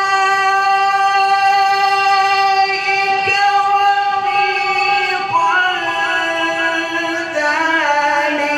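A male qari's voice reciting the Quran in melodic tajweed style. He holds one long high note for about five seconds, then moves down through a run of shorter ornamented notes.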